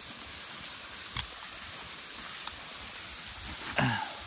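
Creek water running steadily over rocks, a continuous rushing hiss.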